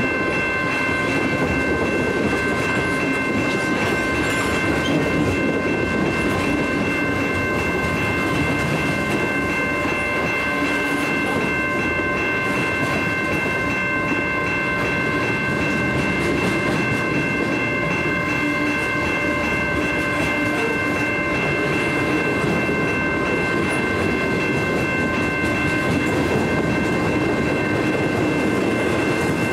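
Freight cars of a passing freight train rolling through a level crossing: a steady rumble and clatter of steel wheels on the rails. A few steady high tones sound above it.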